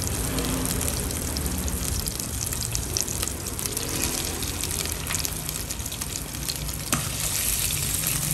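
Sliced shallots frying in hot oil in a stainless steel pot, a steady sizzle. A few sharp clicks come from about three seconds in as chopsticks lay halved crab into the pot.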